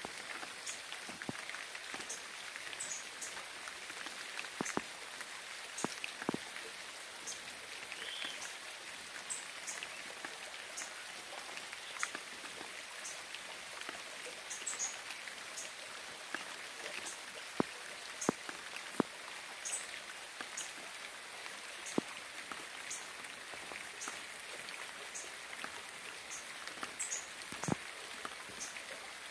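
Steady rain falling, an even hiss with scattered sharp taps of single drops landing close by. Short faint high chirps recur throughout.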